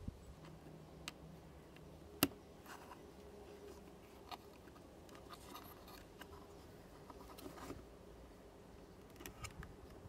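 Faint handling noise as insulated 2.8 mm spade terminals on wires are fitted onto tabs inside a plastic foot-pedal housing: light rubbing and small clicks. One sharp click comes about two seconds in, and a few more near the end.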